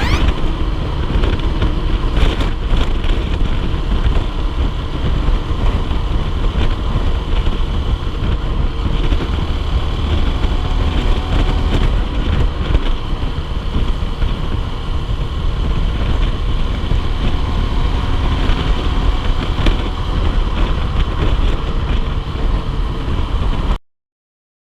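Honda CBF125R motorcycle on the move, its engine buried under heavy wind rumble on the microphone in strong wind. The sound cuts off suddenly near the end.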